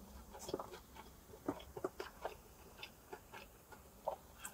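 Close-up chewing of a birria taco, with irregular wet mouth clicks and smacks several times a second.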